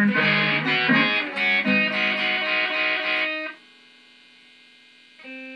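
Sunburst Stratocaster-style electric guitar playing a blues phrase of picked notes and chords. About three and a half seconds in the playing stops, leaving faint ringing notes, and a soft chord is struck near the end.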